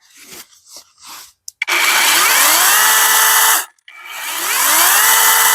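Battery-powered mini chainsaw (Imoum Live) test-run with no load, squeezed twice: each time the electric motor and chain spin up with a rising whine that levels off at a steady pitch for about two seconds, then stop. A few faint handling clicks come first.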